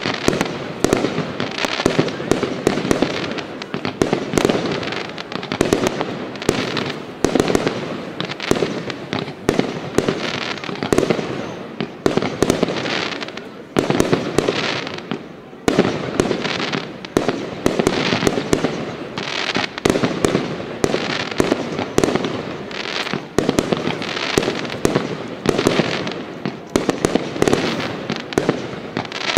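Fireworks display: a dense, continuous run of exploding shells, many loud bangs in quick succession, with a brief lull about fourteen seconds in before the bangs pick up again.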